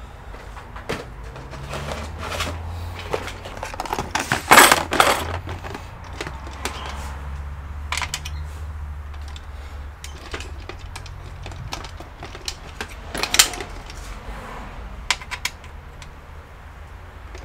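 Irregular clicks, taps and rattles of small plastic and metal parts and tools being handled while an all-in-one computer is taken apart. There is a louder clatter about four and a half seconds in and a sharp knock about thirteen seconds in, over a low steady hum.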